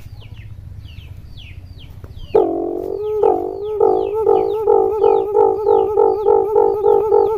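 Caged decoy alimokon dove cooing: about two seconds in, a long low rolling coo starts suddenly and carries on, pulsing three or four times a second. Faint high falling chirps repeat throughout.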